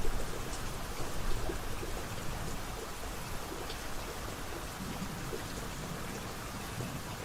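Steady rainfall, an even hiss with scattered drop patter.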